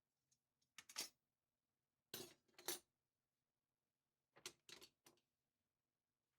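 Metal cutlery clinking as pieces are handled and set down in a kitchen drawer, in a few short clusters of clinks with quiet gaps between.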